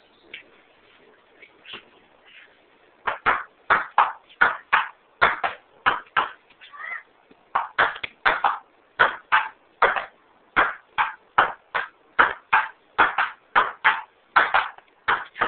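Table tennis ball clicking as it bounces on the table and is batted back and forth: a quick, fairly even run of sharp clicks, two or three a second, starting about three seconds in after a few scattered taps.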